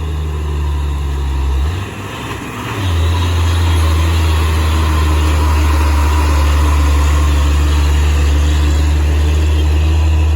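Fuso truck's diesel engine running under load as it climbs, a steady low drone. It falters briefly about two seconds in, then comes back stronger and holds steady.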